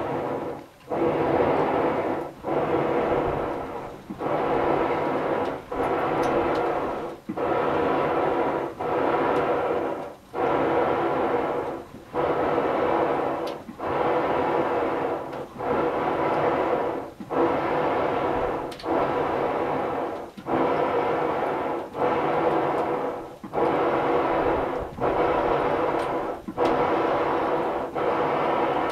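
Hand-pumped wooden Chinese-style box bellows, its double-acting piston pushed back and forth in a steady rhythm to blow air into a charcoal forge. A rush of air comes with each stroke, about one every second and a half to two seconds, with a brief dip as the piston reverses.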